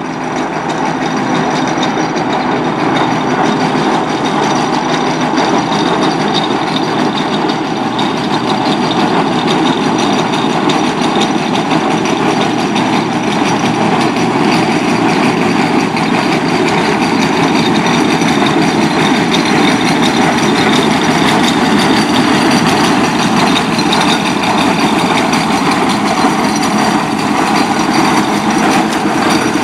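Steam traction engine driving along a tarmac road towards the camera: a steady mechanical clatter and rumble from its motion and steel wheels.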